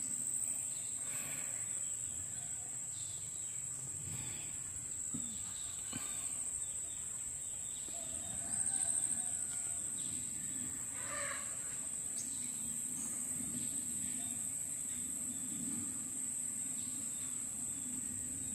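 Insects droning steadily at a high pitch, with a few faint rustles and short calls over the drone.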